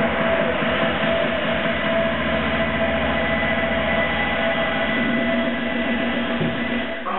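Several air-resistance rowing machines in use at once, their fan flywheels whirring in a steady rushing noise as the rowers pull.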